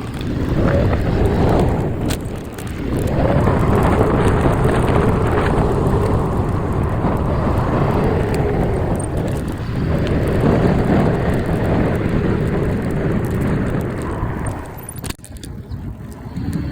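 Heavy wind rumble on the microphone while travelling, swelling and easing, with a sudden drop about fifteen seconds in.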